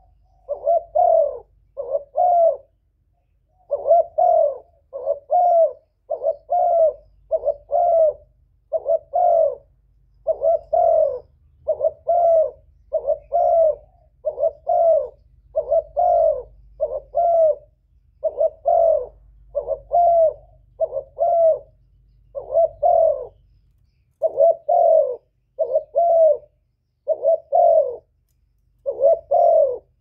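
Spotted dove cooing: a long run of short, low coos, mostly in pairs and threes, with brief pauses between phrases.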